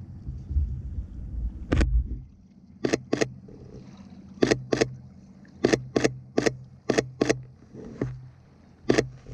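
Sony A7 III camera shutter firing a string of single shots: about a dozen sharp clicks, some in quick pairs, over a faint steady low hum.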